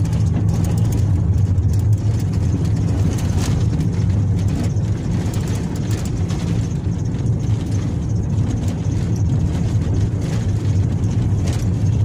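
Inside a vehicle driving on a dirt forest road: a steady low engine and tyre rumble, with scattered small knocks and rattles from the rough surface.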